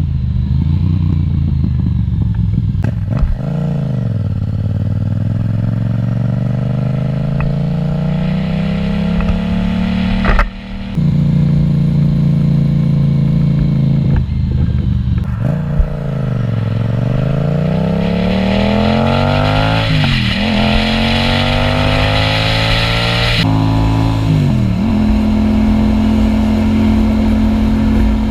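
Yamaha MT-07's 689 cc parallel-twin engine through an Akrapovič exhaust, ridden under acceleration: the engine pitch climbs with each pull and drops back at the gear changes, several times over, then holds steady at cruising speed near the end.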